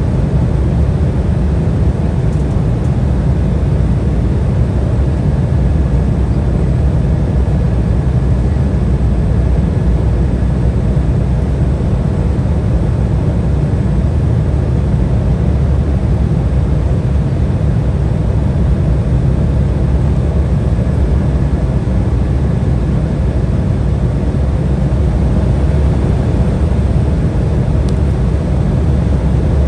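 Steady cabin noise inside an Embraer 175 airliner in flight: a deep, even rush of airflow and the drone of its General Electric CF34 turbofan engines, with no change in pitch or level.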